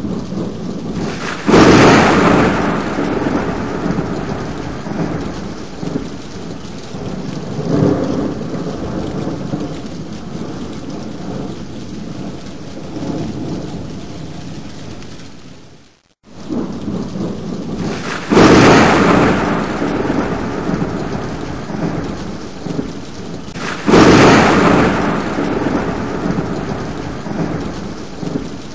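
Thunderstorm: steady heavy rain with loud thunderclaps. Three sudden cracks, about a second and a half in, near the middle and near the end, each followed by a long rolling rumble, with weaker rumbles in between. The sound cuts out briefly just past the middle.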